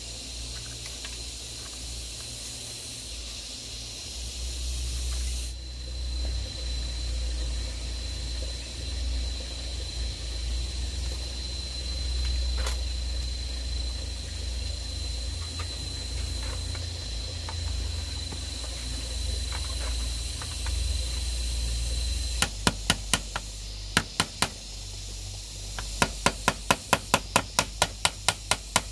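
Sharp knocks of hand-tool strikes on bamboo. A few come in short groups late on, then a quick run of about a dozen near the end at roughly five a second, over a steady faint high buzz of insects.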